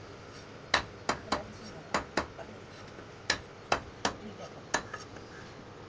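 A knife chopping raw green mangoes into pieces: about ten sharp chops at an uneven pace, the blade knocking through the hard fruit onto the surface below.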